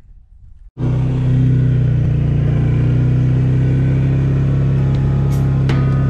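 ATV engine running steadily with a low, even drone, cutting in abruptly about a second in. Guitar music comes in near the end.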